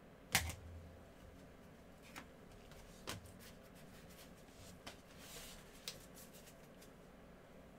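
Prizm basketball trading cards being handled in a nitrile-gloved hand: a sharp tap of card on card about a third of a second in, then a few softer clicks and a brief slide of one card over another.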